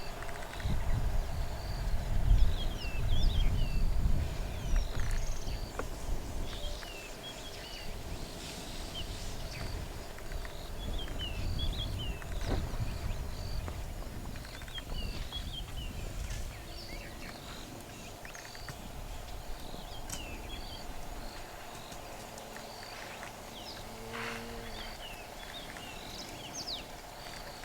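Bush ambience: many short bird chirps go on throughout, over an uneven low rumble that is heaviest in the first five seconds and swells again briefly around the middle.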